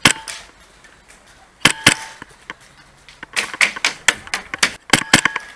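Airsoft guns firing: a single sharp shot, a quick pair about a second and a half later, then a fast string of cracks from about three and a half seconds in, and a few more shots near the end.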